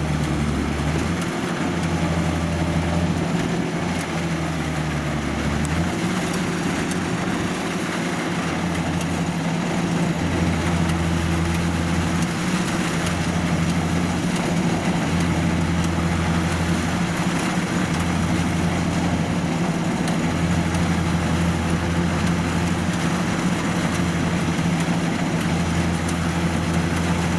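Kubota DC93 combine harvester's diesel engine running steadily, with a deeper low drone that cuts in and out every couple of seconds.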